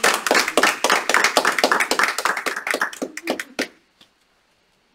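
A small group of people applauding, the clapping thinning out and stopping about three and a half seconds in.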